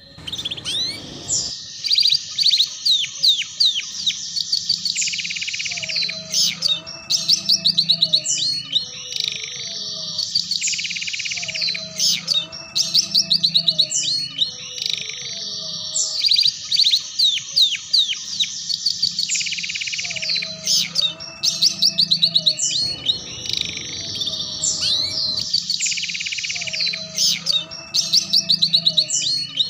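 Domestic canary singing a fast 'ngeriwik' song: rapid trills and chattering note runs in repeated phrases. This is the kind of song played as a master to teach young canaries.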